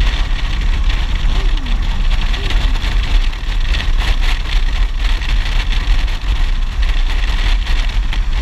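Motorcycle engine running at a steady cruise, with wind rushing and buffeting over the helmet-mounted microphone.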